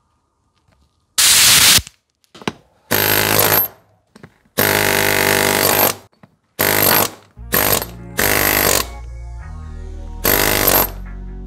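DOKU AA-1.3B pneumatic chipping hammer being test-run after restoration, firing in seven short bursts of rapid hammering as its chisel breaks up concrete block. Background music comes in about two thirds of the way through.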